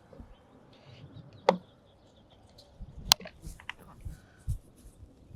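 A few scattered sharp clicks and knocks, the loudest about three seconds in, with a dull low knock near the end, as tools and awning hardware are handled.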